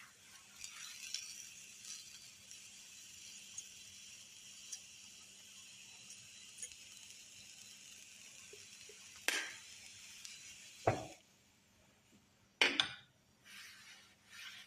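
Glass clinking several times, sharp single knocks and a quick double, as whole cloves are added to the preparation. Under it runs a faint steady hiss with a few light ticks, which cuts off abruptly about eleven seconds in.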